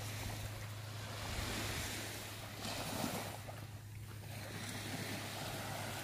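Surf washing onto the beach, the wash swelling and easing, with a steady low hum from wind on the microphone underneath.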